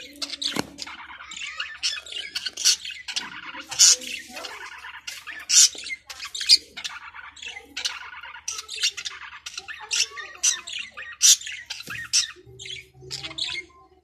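Budgerigar chattering: a continuous warbling chatter broken by loud, sharp squawks about once a second.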